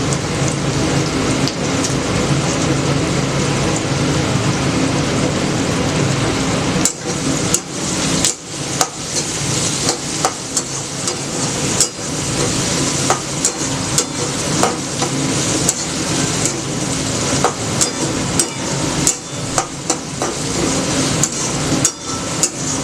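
Food frying in a pan with a steady sizzle while a metal utensil stirs it. From about a third of the way in, the utensil knocks and scrapes against the pan again and again at an irregular pace.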